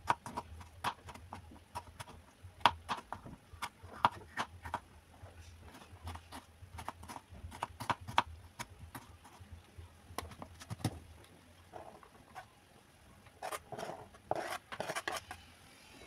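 Kitchen knife chopping tomatoes on a plastic cutting board: the blade knocks on the board in quick, irregular taps, several a second.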